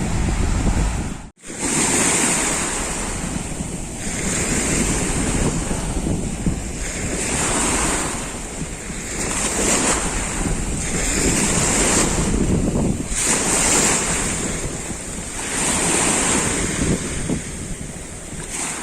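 Sea surf washing over a pebble beach, waves rising and falling every two seconds or so with a high hiss, and wind buffeting the microphone. The sound drops out briefly about a second in.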